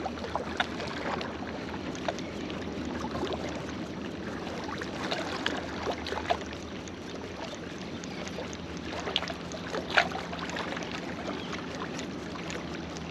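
Water lapping against a small boat's hull, with scattered light clicks and knocks. A faint steady hum comes in about halfway through.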